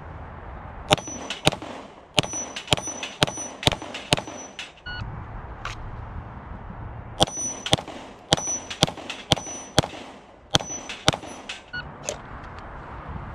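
Two quick strings of pistol shots at a steel plate rack, with the struck plates ringing high after many hits. A short electronic shot-timer beep about five seconds in comes before the second string, and another beep comes near the end.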